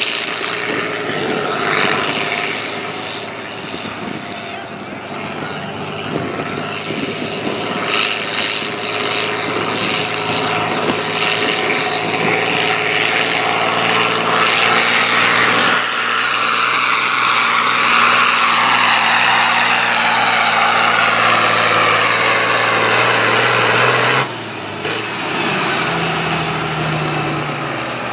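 Farm pulling tractor running hard under full load down the pulling track, its engine noise building. About 24 seconds in the throttle is cut, and the sound drops off sharply while a high whistle falls away in pitch.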